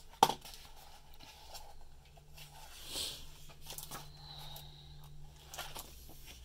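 Pages of a hardcover picture book being handled and turned: a sharp click just after the start, then a few soft paper rustles around three seconds in and again near six seconds, over a faint steady low hum.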